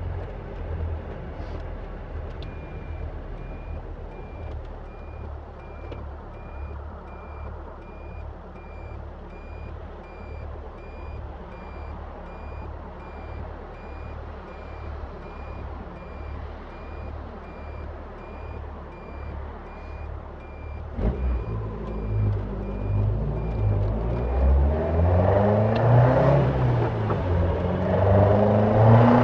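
Caterham Super Seven 1600 engine idling with a low, pulsing rumble while a high electronic beep repeats about twice a second. About 21 seconds in the engine picks up and the revs climb as the car accelerates away, and the beeping stops soon after.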